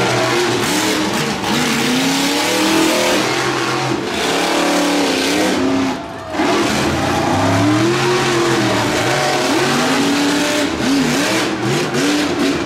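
Monster truck engine revving up and down over and over, with a short drop in loudness about six seconds in.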